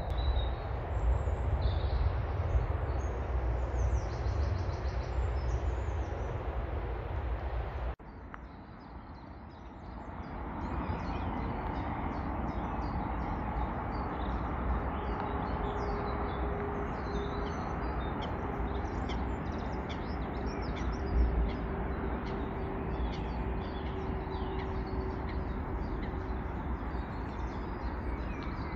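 Small birds singing and chirping all around, many short high calls. For the first several seconds wind rumbles on the microphone; after a sudden cut the birdsong sits over a steady outdoor hum, with one brief low thump about two-thirds of the way through.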